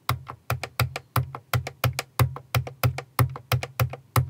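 Behringer TD-3, a clone of the Roland TB-303 analog bass synthesizer, playing a sequenced bassline of short, clicky low notes, about three a second.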